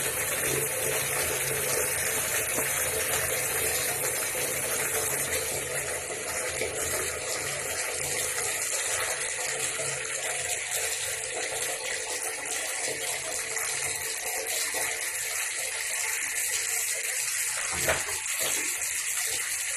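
Tap water running steadily into a bathtub, with one short knock near the end.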